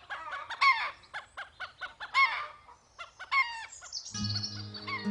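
Bantam cockerel giving short, harsh, falling warning calls, three of them about a second and a half apart. Soft music comes in about four seconds in.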